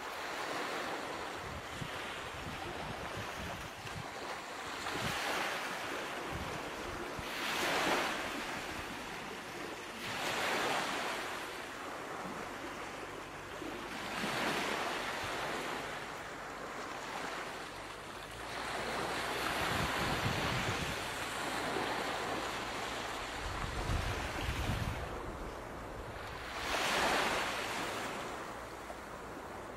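Ocean surf: waves breaking and washing in, the rushing noise swelling and fading every few seconds.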